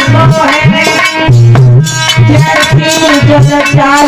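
Instrumental passage of Hindi devotional folk music: a hand drum plays a quick rhythm of bass strokes that bend upward in pitch, under a sustained melodic line.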